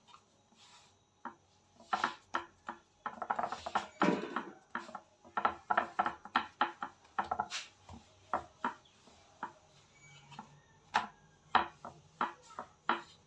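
Rolling pin knocking and clacking on a roti-rolling board as dough is rolled out, in irregular taps and quick clusters of knocks.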